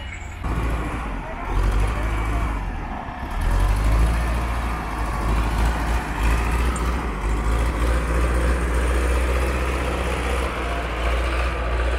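Diesel engine of an old wheel loader running close by, a steady low rumble that gets louder a few seconds in, with waves washing on the shore.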